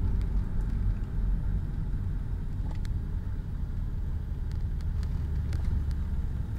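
Mitsubishi Galant/Legnum VR-4's twin-turbo V6 and road noise heard from inside the cabin as the car decelerates in third gear: a steady low rumble.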